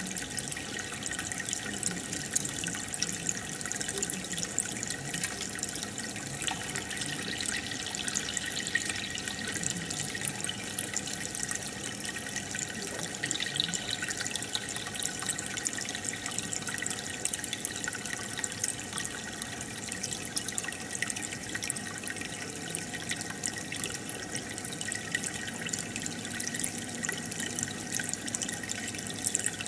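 Aquarium water bubbling and trickling steadily, with a fine crackle of rising air bubbles.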